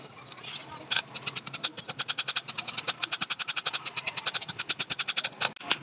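Hand hammer striking a steel knife blank cut from an old file on a steel anvil block: a fast, even run of metal-on-metal blows, about eight a second, with a short break near the end.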